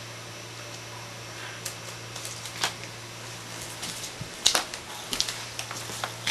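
A dog with a breathing problem, making irregular short, clicky snorts and rasps, the sharpest and loudest about four and a half seconds in, over a steady low hum.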